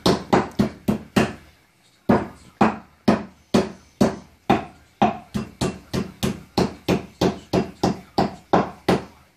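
Meat mallet pounding slices of meat on a wooden cutting board: a steady run of thuds, about three a second, with a short break after the first second.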